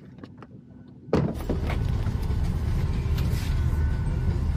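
Boeing 737-800 cabin noise: a few light clicks, then about a second in a sudden switch to a steady low rumble with hiss that carries on.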